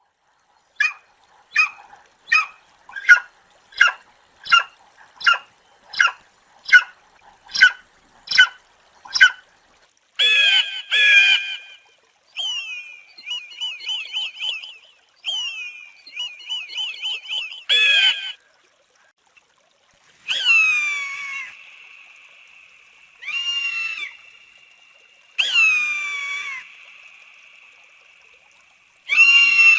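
Eagle calling: a run of about a dozen short, high calls under a second apart, then longer screams and a fast chattering series, and finally several long, falling screams, each leaving a lingering ring.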